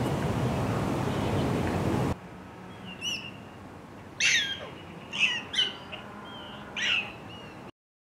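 Steady outdoor background noise with a low hum, then, after a cut, about five short, sharp chirps that sweep downward in pitch over a quieter background, the loudest ones about four and five seconds in.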